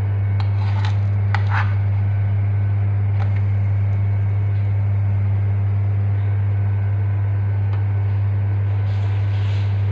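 A steady low hum throughout, with a few light clicks and scrapes of a metal spoon against a non-stick frying pan in the first couple of seconds as a pancake is turned and checked.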